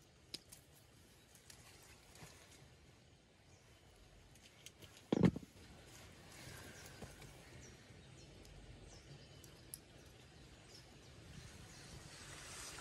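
Faint handling noise of wiring work: small clicks from side cutters and wires being handled, with one short dull knock about five seconds in.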